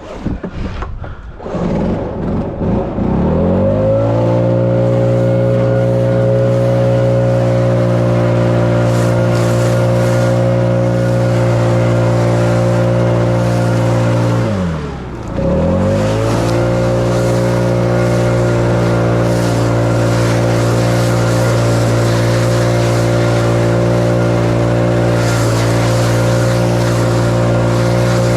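Gas-powered leaf blower engine revving up from low speed over the first few seconds, then running steadily at full throttle. About halfway through the throttle is briefly let off and the engine drops in pitch, then goes straight back up to full speed.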